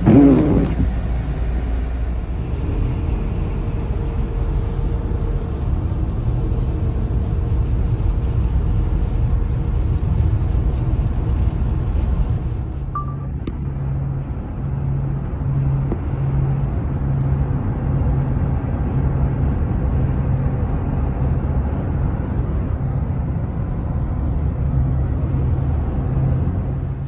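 Steady road and tyre rumble of a car driving on a snowy highway, heard from inside the cabin. There is a short loud swell at the very start, and in the second half a low regular pulse comes about once a second under the rumble.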